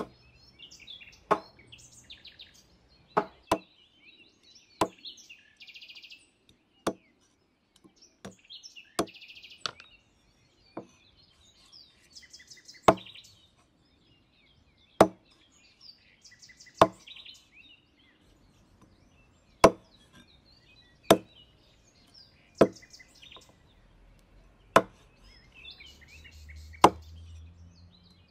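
Cleaver chopping the claws off raw chicken feet against a wooden chopping board: single sharp chops every one to three seconds, with birds chirping in between.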